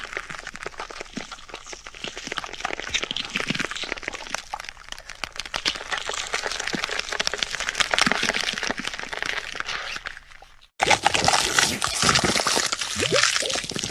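Gore sound effect: a dense wet crackling and squelching that builds for about ten seconds. After a brief gap it cuts to a louder, denser wet crackle.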